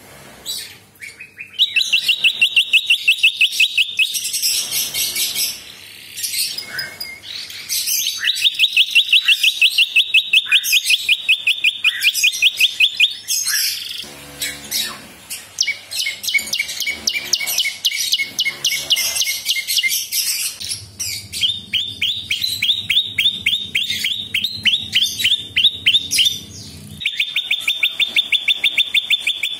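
Caged prinia (prenjak) singing: several long trains of rapid, evenly repeated high notes, each a few seconds long, separated by short pauses filled with scattered chirps.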